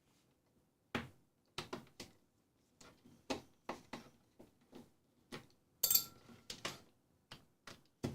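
Irregular clicks and taps of a plastic trouble-light housing and a screwdriver being handled while the housing screws are taken out, with a brighter metallic clink about six seconds in.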